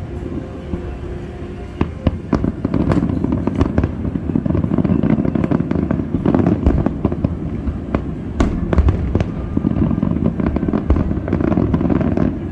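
Aerial fireworks going off: repeated sharp bangs over a dense rumble and crackle of bursting shells, growing thicker about two seconds in.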